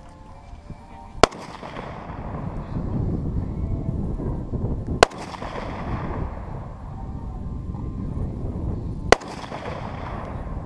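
Three single rifle shots from an AK-pattern semi-automatic rifle, fired slowly, about four seconds apart, each a sharp crack with a short fading echo.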